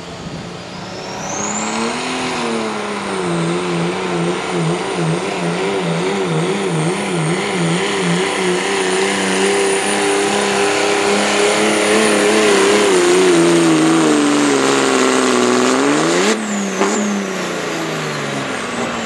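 A turbocharged work stock diesel pickup pulling a sled under full load. The engine runs hard under a high, steady turbo whistle, and its note wavers up and down about twice a second while it slowly climbs. Near the end the engine flares up sharply, the whistle cuts off, and the engine winds down.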